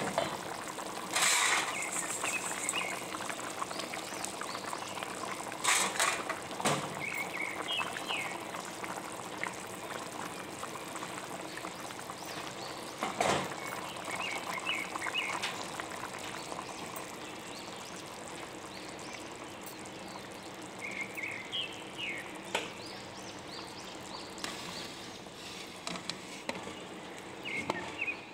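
Tomato-based okra stew bubbling and simmering in a pan, a steady bubbling hiss with small crackles, broken by a few sharp knocks, the loudest about a second in and around six and thirteen seconds.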